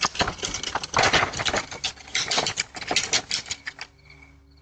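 Wheeled plastic trash cans being rolled and dragged over pavement: an uneven rattling scrape that stops about four seconds in, leaving a faint steady hum.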